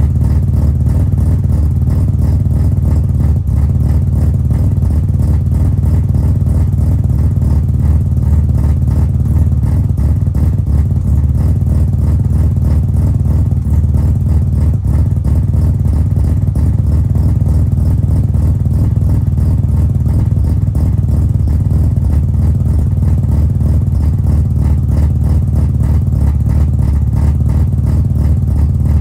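Bridgeported rotary engine of a first-generation Mazda RX-7 idling steadily at the exhaust after a cold start, with a rapid, even pulsing beat.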